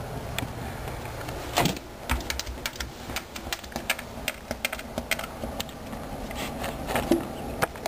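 A cat's tail whacking against a wall in a quick, uneven run of light knocks, several a second, with a louder knock just before two seconds in and another about seven seconds in.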